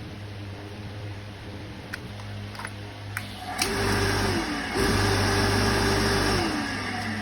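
Small electric motor switched on and run with a loud steady whine and whirr. It is cut briefly and starts to slow, runs up again, then is switched off and whines down in pitch as it coasts to a stop. A steady low electrical hum runs underneath, with a few clicks before it starts.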